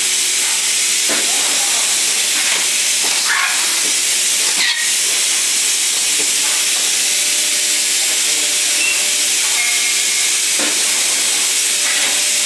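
Steady hiss of a plastic vacuum thermoforming machine's compressed-air and vacuum system running, with a faint steady machine hum beneath it.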